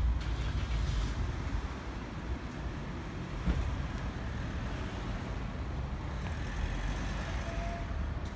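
Steady outdoor rumble of road traffic by a suburban railway line, heaviest in the first second, with a faint knock about halfway through. No train passes.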